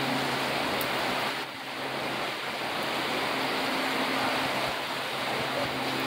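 Heavy rain falling steadily, an even hiss. A faint low hum sits underneath, dropping out about a second in and coming back about halfway through.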